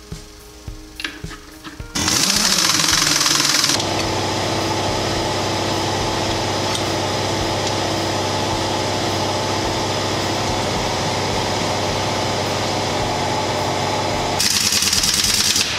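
Air-powered wrench running on the axle shaft flange nuts of a truck drive-axle hub. About two seconds in, a loud hissing rattle starts abruptly. It settles into a steady run for about ten seconds, and a second loud rattling stretch comes near the end.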